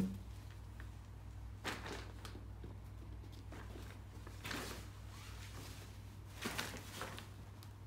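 Kittens pouncing on a collapsed Elinchrom Portalite softbox: its fabric rustles and scuffs in four short spells a second or two apart, over a low steady hum.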